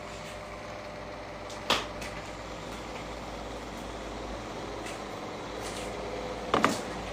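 Steady room hum and hiss, with two brief sharp clicks: one a little under two seconds in and one near the end.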